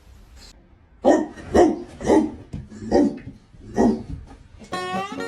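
A dog barking about five times, each bark short and separate. Music starts near the end.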